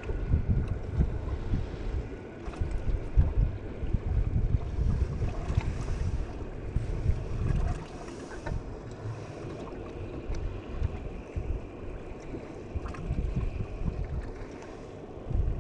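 Wind buffeting the microphone in uneven gusts over choppy lake water, heavier at first and easing about eight seconds in.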